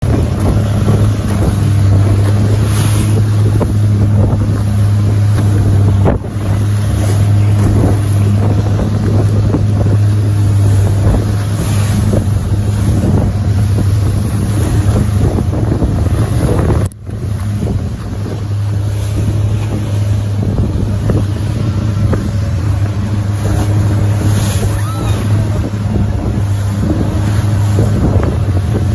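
Motorboat running at speed through rough sea: a steady, loud engine drone under the rush and splash of water against the hull, with wind on the microphone. The sound dips sharply for a moment about seventeen seconds in.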